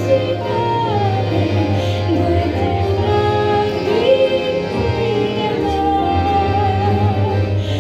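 A woman singing a Christian worship song into a handheld microphone, amplified, with long held and gliding notes over an instrumental accompaniment of steady sustained bass and chords.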